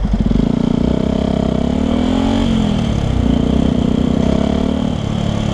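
Yamaha WR125X single-cylinder four-stroke engine through a LeoVince LV One exhaust, pulling away and accelerating. The pitch rises for about two seconds, drops at a gear change, then runs steadier.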